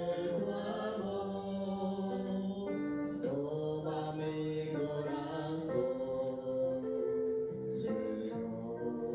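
Church music: slow, sustained chords without words, the close of an offertory hymn.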